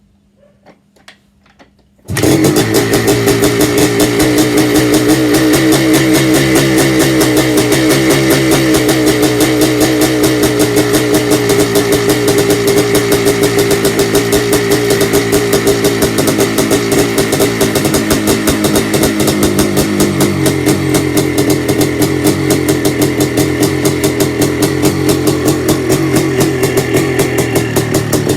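Yamaha IT 490 two-stroke single-cylinder dirt bike engine catching on a kick about two seconds in, after a few faint clicks, then running loudly with its revs wavering a little. A cold start on about the seventh kick after months standing unused.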